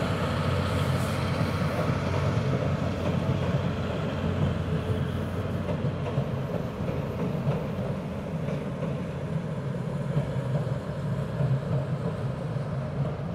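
The SL Taiju steam-hauled passenger train's coaches rolling across a steel truss bridge: a steady, deep rumble of wheels on the rails that slowly fades as the last coaches leave the bridge.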